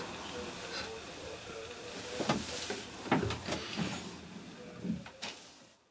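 Several dull thumps and knocks over a steady low hum, the sound fading out to nothing at the end.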